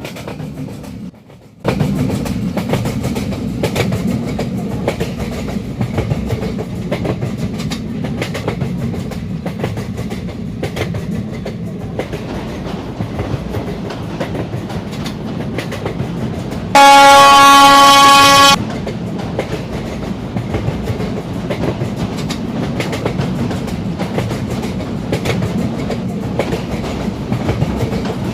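A train running on the rails with steady rumbling and wheels clattering over rail joints. About two-thirds of the way through, the locomotive horn sounds one loud blast of about two seconds.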